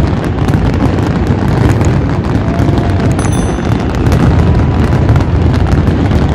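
Fireworks display: a loud, continuous barrage of crackles and booms with no letup.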